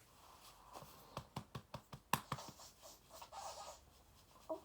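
Faint handling sounds: a quick run of light clicks and taps from about a second in, several a second, with soft scratching and rustling around them.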